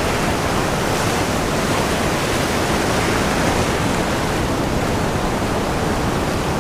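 Shallow ocean surf washing in and breaking into foam: a steady, even rush of water.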